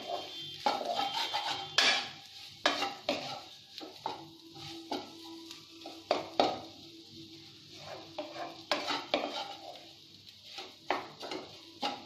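Wooden spatula stirring and mashing spiced potato stuffing in a kadai, with irregular knocks and scrapes of the spatula against the pan.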